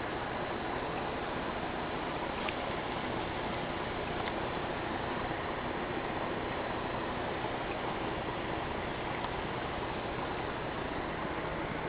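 Steady hiss of aquarium water moving through running filtration, with a few faint ticks.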